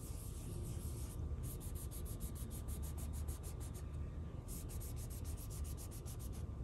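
Fingertip rubbing over a matte glass screen protector on a phone, a faint, dry, scratchy friction sound made of many small repeated strokes.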